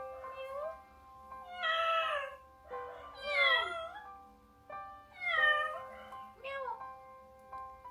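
A kitten meowing about five times, short calls that mostly fall in pitch, over background piano music.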